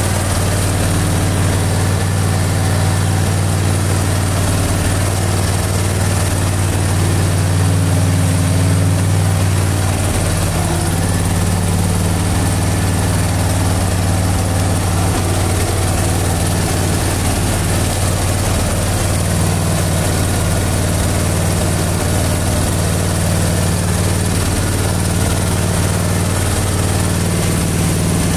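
Briggs & Stratton Intek V-twin engine of a Husqvarna R 214 TC riding mower running steadily with a constant low hum, not long after a cold start.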